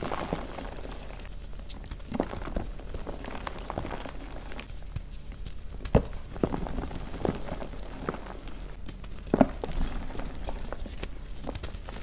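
Fresh white gym chalk blocks being squeezed and crushed by hand: soft, powdery crunching at an uneven pace, with a few sharper crunches, the strongest about halfway through and again about three quarters of the way in.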